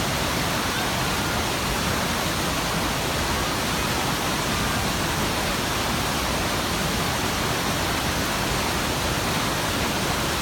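Waterfall pouring steadily, a constant full rushing of falling water with no change in level.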